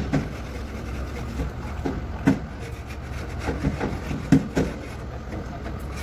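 Irregular knocks and clatter of hand work on a dismantled diesel engine, about ten short strikes with the loudest about two and four seconds in, over a steady low rumble.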